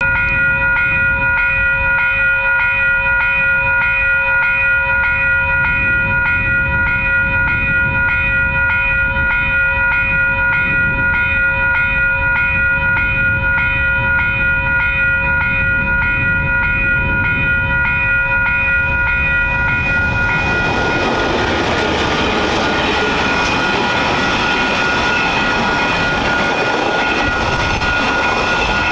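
Level crossing warning bells ringing with a steady repeating chime over a low rumble as a freight train approaches. About twenty seconds in, the loud rushing and rattling of the train's container wagons passing over the crossing swells up and mostly drowns the bells.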